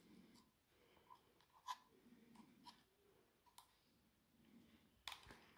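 Near silence broken by a few faint, scattered clicks of hands handling the opened plastic case of a DeWalt 18V XR battery pack and its metal terminal tab, the clearest about a second and a half in.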